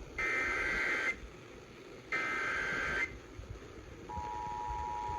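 Emergency Alert System header data: two one-second warbling digital bursts about a second apart, then the steady two-tone EAS attention signal starting about four seconds in. This marks the start of a broadcast flash flood warning.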